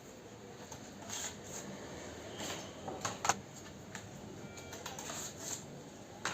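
Scattered clicks and short rustles of computer parts and packaging being handled during a PC build, the sharpest click about three seconds in.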